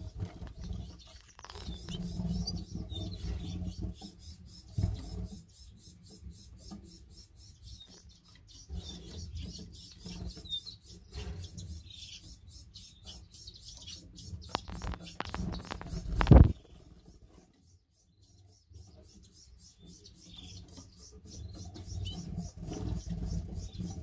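Rubbing and light knocking of handling noise on the microphone, with a few brief canary chirps. One louder knock comes about two-thirds of the way through.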